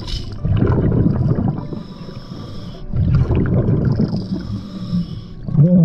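Scuba diver breathing through a regulator underwater: a bubbly rumble of exhaled bubbles alternates with the steady hiss of each inhale, two breaths in all.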